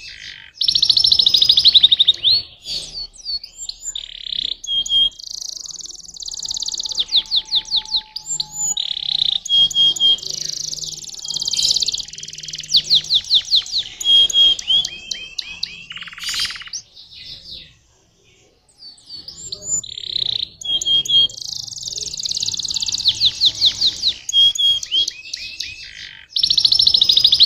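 Domestic canary singing a long song of fast trills and rolls: rapid runs of repeated notes broken by short clear whistles. It pauses for about a second roughly two-thirds of the way through, then sings on.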